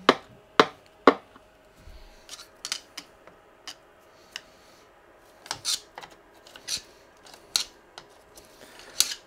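Sharp clicks and light scraping as sticky residue is picked out of a stopped paper shredder's cutters: three loud clicks in the first second or so, then lighter, scattered ticks and scrapes.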